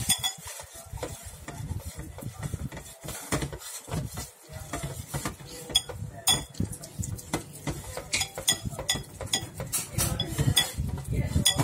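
Chicken skin and fat being kneaded and pressed by hand in a bowl with enzyme powder, making a run of small wet clicks and light clinks against the bowl. The clicks come more densely in the second half.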